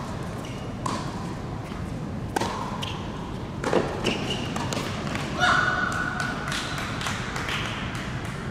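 Tennis rally on an indoor hard court: a serve, then racket strikes on the ball and ball bounces, one every second or so, the loudest a little under four seconds in. A held high squeal lasts about a second, starting about halfway through.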